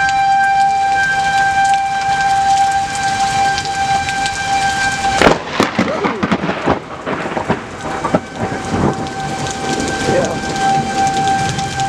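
Thunderstorm with heavy rain. A sudden close thunderclap cracks about five seconds in and crackles and rumbles for a couple of seconds. A steady high tone runs under the rain before the clap and comes back after it.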